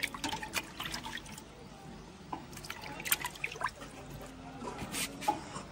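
Fuchka (pani puri) being made: a string of short, sharp clicks and taps as crisp puri shells are cracked open and handled, with liquid dripping and splashing as they are dipped in spiced water.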